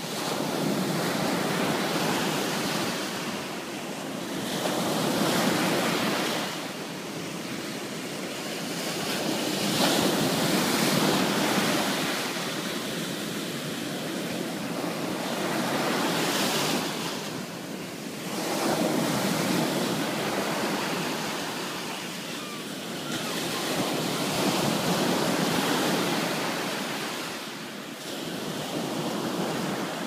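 Small waves breaking and washing up a sandy beach, the rush of surf swelling and ebbing every four to six seconds.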